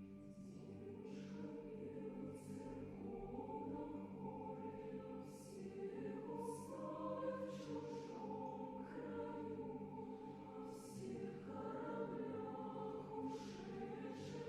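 A choir singing a classical choral work, its sustained chords swelling in the first few seconds, with hissing sibilant consonants coming through several times.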